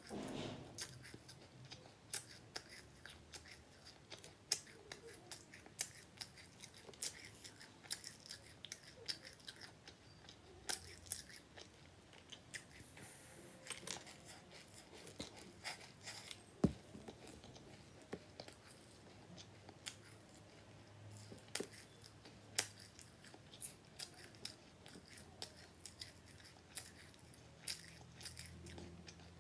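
A person chewing and crunching seeds close to the microphone: many small, sharp crackles coming a few times a second at an irregular pace.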